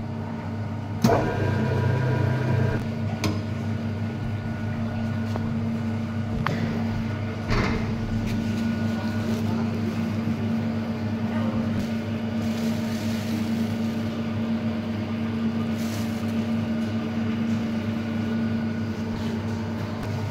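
Hydraulic oil press machine running with a steady electric hum, with a few sharp clicks in the first eight seconds.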